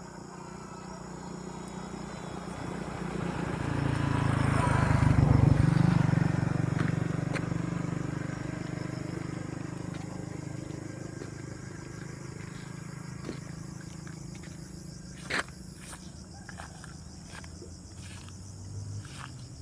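Insects chirring steadily. A low rumble with a steady hum swells up a few seconds in and fades away again, and a single sharp click sounds about fifteen seconds in.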